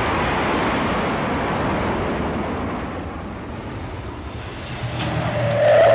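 A steady rushing roar that eases off slightly, then a car engine swells near the end as it approaches, rising in pitch.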